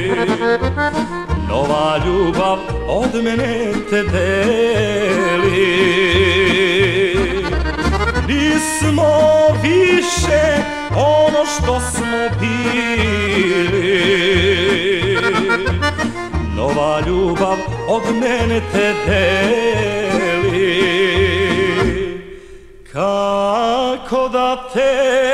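Serbian folk song from a 1976 vinyl single: an accordion-led band playing wavering melodic lines over a steady bass beat, dropping out briefly near the end.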